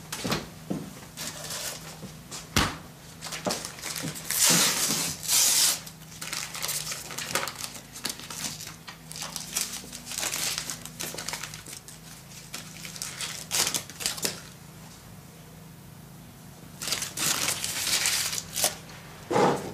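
Paper wrapper of an ice cream bar being torn open and crumpled by hand, in irregular crinkling bursts that come loudest about four to six seconds in and again near the end. A single knock sounds about two and a half seconds in.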